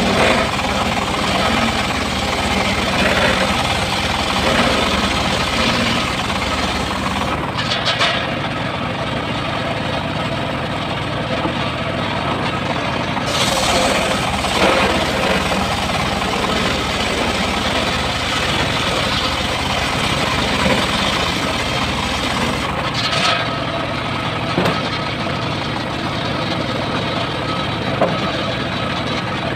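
Homemade engine-driven circular sawmill running, its blade ripping lengthwise through a log over the steady drone of the machine.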